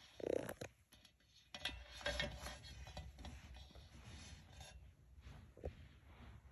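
Soft rubbing and scraping handling noise with a few light knocks, as plastic toy dinosaurs and the phone are moved about on a tabletop.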